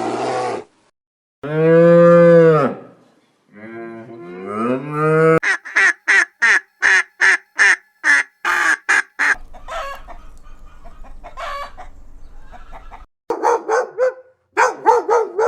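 A sequence of farm animal calls: a cow mooing once, long and low, then a fast run of short repeated poultry calls, about two a second.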